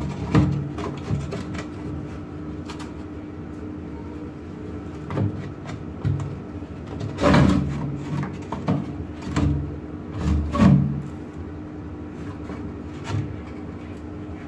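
Pallet-wood boards being handled and fitted into a wooden cabinet frame by hand: scattered wooden knocks and scrapes, with two louder knocks past the middle.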